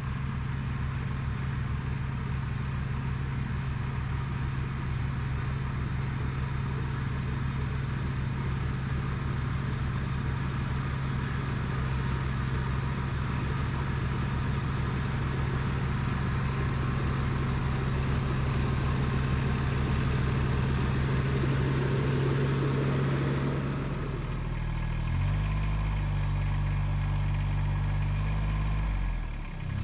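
Kubota BX2230D compact tractor's three-cylinder diesel engine running steadily under load. About 24 seconds in, its note changes in pitch and character, and it dips briefly near the end.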